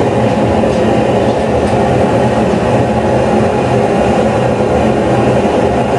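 Gas forge burning at full heat: a loud, steady, unbroken rushing noise from its burner flame.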